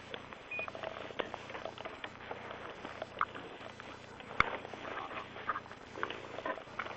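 Irregular light clicks and taps, with one sharp click about four and a half seconds in.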